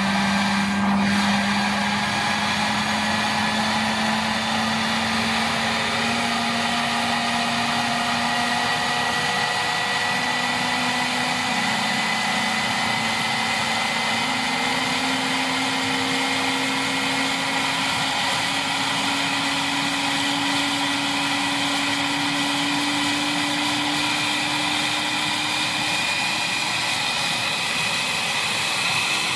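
McMurtry Spierling electric race car's fan-powered downforce system, more than 80 horsepower of fans, running with the car standing still: a steady whine over a rush of air, its pitch rising slowly and evenly.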